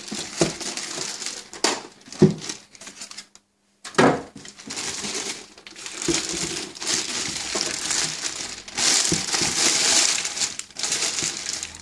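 Packaging being handled as a computer case is unpacked: plastic wrap and packing material crinkle and rustle in bursts, with a few light knocks.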